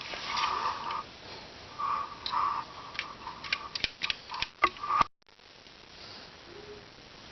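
A quick run of about ten sharp clicks, following a few short hissing bursts; the sound cuts out abruptly about five seconds in.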